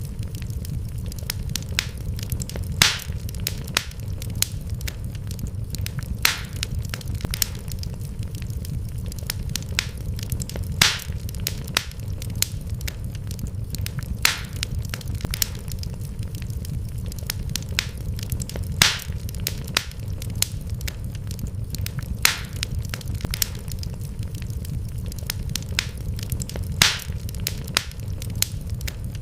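Wood fire burning in a fireplace: a steady low rumble of flames with frequent crackles and a sharp, louder pop every few seconds.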